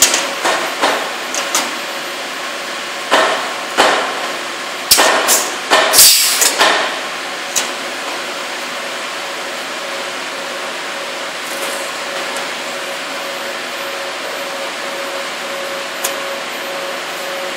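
Sheet-metal notching station's punch heads firing on a panel: a run of sharp metal bangs through the first seven seconds or so, with a loud hiss among them about six seconds in. After that comes a steady machine hum, with one more bang near the end.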